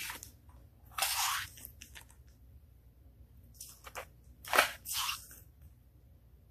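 Pages of a hardcover picture book being turned: several short paper rustles and swishes, with a sharper flick about four and a half seconds in.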